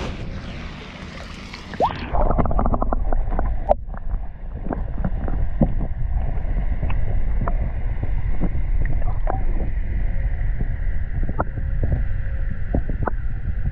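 Muffled underwater sound picked up by a camera held in pond water. About two seconds in the high sounds cut off and a low rumble takes over, with scattered clicks and small bubbling pops.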